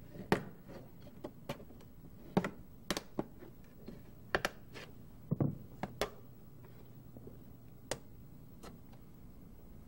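Plastic dashboard end cover of a Mercedes W210 E-Class being pried off with a flat tool: a series of sharp clicks and snaps as its retaining clips let go, the loudest near the start, with a duller knock about halfway through.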